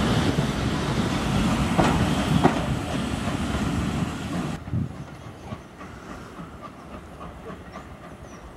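Railway passenger coaches rolling past close by, a loud steady rumble with sharp clicks as the wheels cross rail joints. About halfway through, the sound drops suddenly to a faint, distant train rumble.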